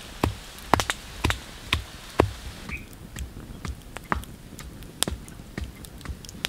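Rhythmic pounding, sharp knocks with a dull thump about twice a second, for the first few seconds; then, from about three seconds in, a wood campfire crackling with scattered sharp pops.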